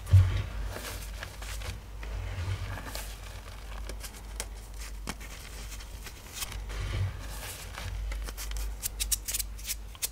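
Soft, powdery chalk blocks being crunched and crumbled, giving irregular crisp crackles and snaps. There is a dull thud right at the start, and a quick run of crackles near the end.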